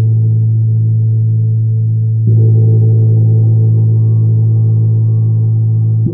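Large gong struck on its centre boss with a soft padded mallet, ringing with a deep, steady hum and shimmering overtones. A fresh stroke about two seconds in swells the sound again, and the ringing drops off sharply near the end.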